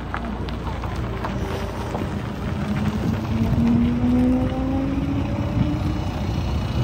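A single-deck service bus drives past and pulls away. Its engine note rises in pitch as it gathers speed, loudest about four seconds in as it passes.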